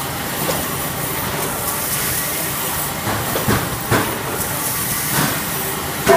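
XY-AI-500 automatic maxi roll toilet paper band saw cutting machine running steadily, with a few short knocks and clatters from the cutting and feed mechanism in the second half.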